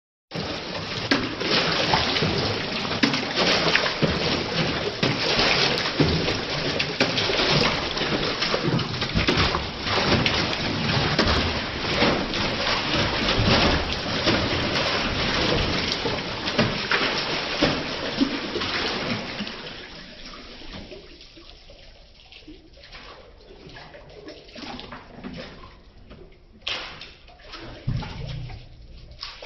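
A dog splashing its front paws in a plastic tub of water, rapid, continuous splashing that dies down about two-thirds of the way through to occasional splashes.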